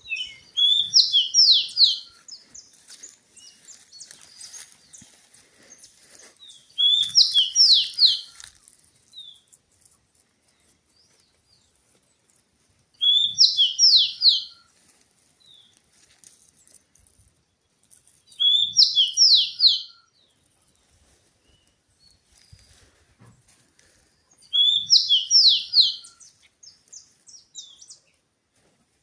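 A songbird singing the same short, high phrase of a few quick falling notes, five times, about six seconds apart.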